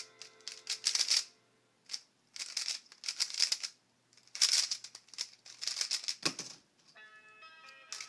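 Aolong v1 plastic 3x3 speedcube being turned rapidly, a dense clatter of layer clicks in bursts with short pauses between. A thud about six seconds in as the laptop spacebar is slapped to stop the timer, then background music with steady tones near the end.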